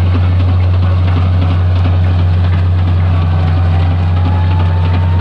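A heavy engine running steadily with a deep, even hum. A faint thin whine slowly rises in pitch over the second half.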